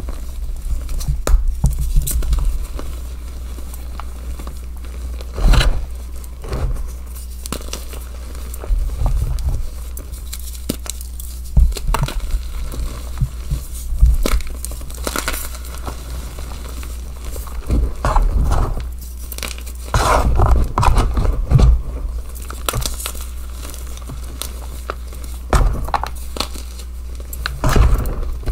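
Blocks of dyed gym chalk crunching and crumbling as hands squeeze them apart over a tub of loose chalk powder, in irregular bursts of crisp crackling over a steady low hum.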